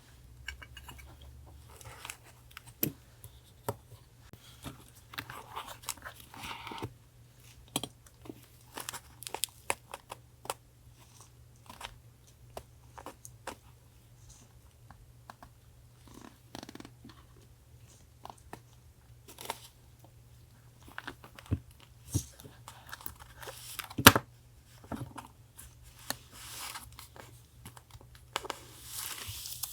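Paper being handled for journal collage: rustling, crinkling and tearing of paper with many scattered light taps and clicks on the desk, and one sharp knock late on. A steady low refrigerator hum runs underneath.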